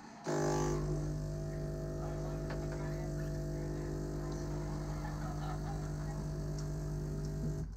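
A steady pitched drone with a rich set of overtones. It starts abruptly about a quarter second in, holds an even pitch and level, and cuts off suddenly just before the end, like a machine switched on and off.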